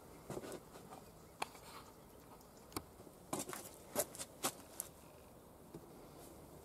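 Scattered sharp clicks and light knocks over a faint background, most of them bunched together in the middle. The likely sources are a small wood fire crackling under a grill, then a lidded metal pot being carried and set down on a wooden board.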